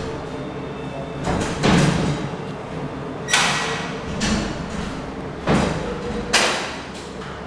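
Wooden cupboard doors being handled: about six knocks and thuds, each with a short scraping tail, over a steady low hum.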